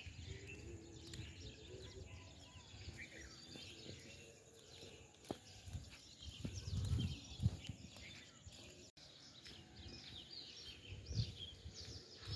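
Small birds chirping and twittering all around in the open air, with a few low rumbles on the microphone about seven seconds in and again near the end.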